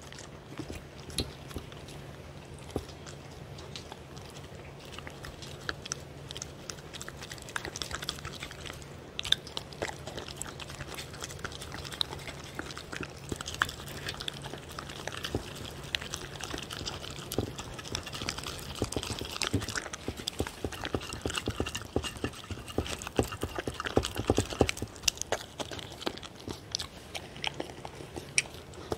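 A dog eating soft food from a stainless steel tray: wet chewing and lip-smacking in many small clicks, busier in the second half, over a faint steady hum.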